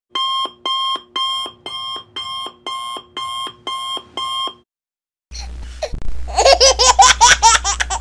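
Alarm clock sound effect: nine electronic beeps, about two a second. After a short gap, a baby laughing in giggling bursts over a low hum, louder than the beeps.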